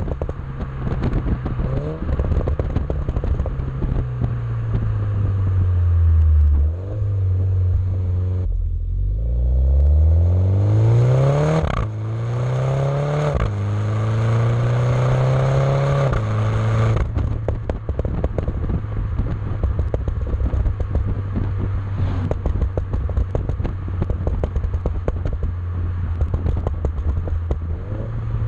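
2017 MINI John Cooper Works F56 turbocharged four-cylinder engine with a Maxi-Tuner Hexagon valve exhaust, accelerating hard with a rising note through two upshifts. On lifting off the throttle, the exhaust crackles and pops on the overrun.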